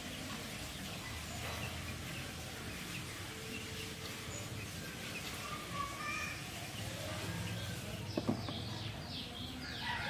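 Birds chirping over steady outdoor background noise, with a quick run of falling calls near the end and a single sharp knock about eight seconds in.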